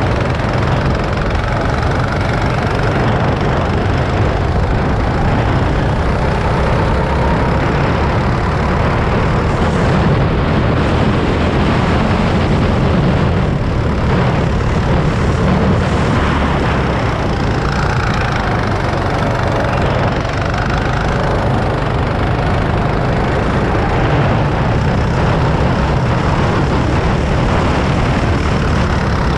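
Go-kart's small engine running under load as the kart laps the track, heard from on board. Its pitch drifts up and down with the throttle through the corners.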